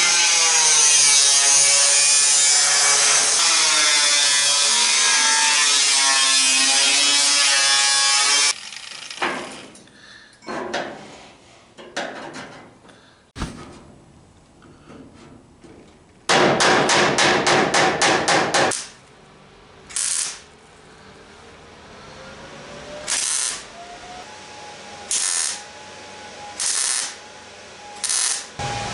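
Metalworking on a steel truck fender. A power tool runs loud and steady with a wavering pitch for about eight seconds. Then come scattered sharp knocks, a quick run of about ten loud strikes, and several short bursts near the end.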